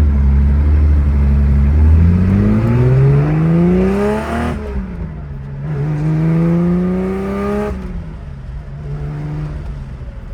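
1978 Porsche 911's air-cooled flat-six revved twice: after a steady held note, the pitch climbs for about two seconds, drops off sharply, climbs again, then falls back to a steady idle near the end.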